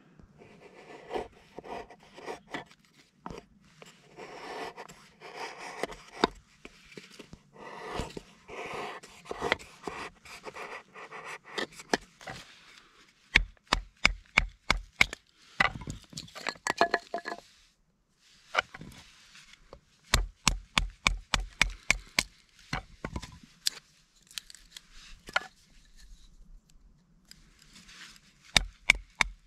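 Kindling being split by batoning: a fixed-blade knife is set into a small stick and struck on the spine with a wooden baton, giving quick runs of sharp wooden knocks several times, each run splitting the wood. Before the knocking there is a stretch of scraping and rustling.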